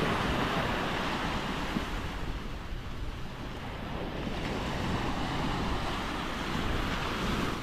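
Small waves breaking and washing up a sandy shore, swelling louder twice, with wind buffeting the microphone.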